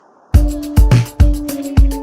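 Background music with a steady beat of deep drum hits and a held bass note, starting abruptly about a third of a second in after near silence.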